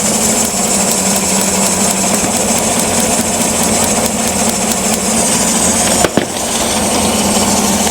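Chevrolet 5.3 L V8 idling with a misfire, with rapid crackling of high-voltage spark arcing to a test light held near the ignition: a sign of a leaking spark plug wire, plug or coil.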